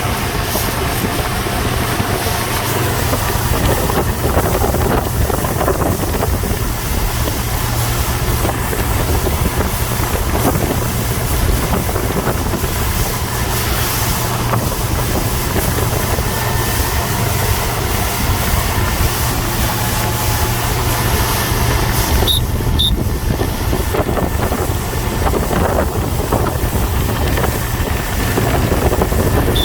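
A motorboat running steadily under way, its engine a constant low hum, with wind rushing over the microphone.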